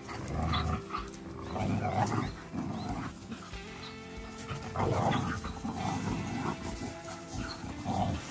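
Two Salukis galloping and playing on grass close by: loud irregular bursts of paw thuds and rustling come and go as they pass. Background music plays throughout.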